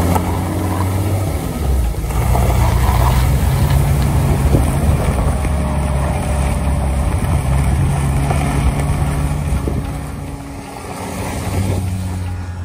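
BMW 635 CSi's straight-six engine running at low speed as the car rolls slowly past, tyres rolling over gravel. The engine note shifts about a second in, then holds steady; the sound dips and swells again near the end.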